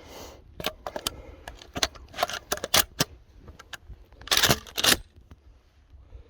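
Close handling noise: a quick series of sharp clicks and knocks, with a longer rustling scrape about four and a half seconds in.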